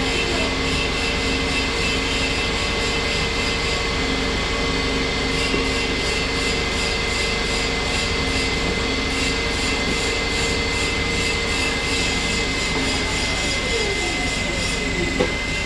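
Special-purpose machine tool with opposed spindle heads running its automatic machining cycle, a steady mechanical hum with a high whine. Near the end a few falling tones and a single sharp knock.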